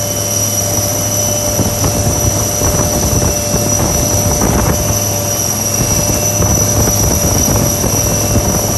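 Military helicopter running steadily: a constant high whine over the deep, even noise of the rotor and engines, with some wind buffeting.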